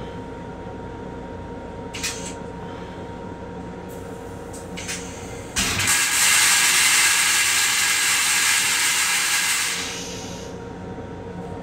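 Metro-North M7 railcar toilet flushing: a sudden loud rushing hiss starts about five and a half seconds in, runs for about four seconds and tapers off. Under it runs the railcar's steady hum, with a couple of faint clicks before the flush.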